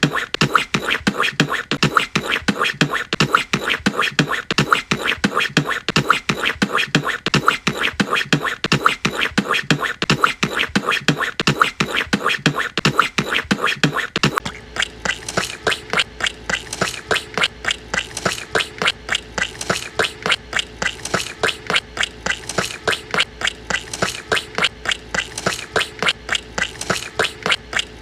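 Comic cartoon footstep sound effects repeating in a quick, even walking rhythm. About halfway through it switches to a different comic step sound with a steady tone underneath.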